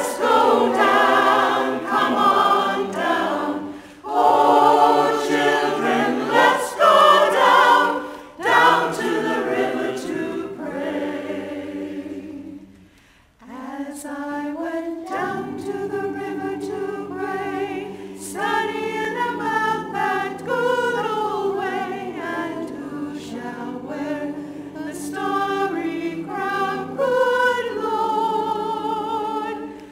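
Church choir singing a slow hymn in parts; about halfway through the singing breaks off for a moment, then carries on more softly.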